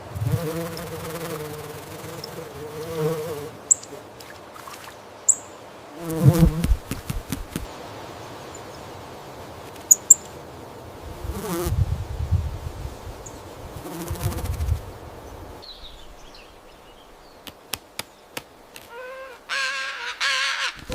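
Flying insect buzzing on and off, with scattered clicks and rustles between the buzzes. A short pitched animal call begins near the end.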